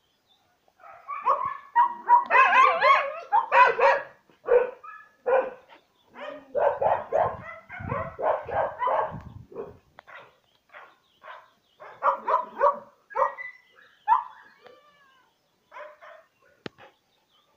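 A dog barking in runs of short barks, thick and fast in the first few seconds, then at a steady pace of about two a second, thinning out to scattered barks toward the end.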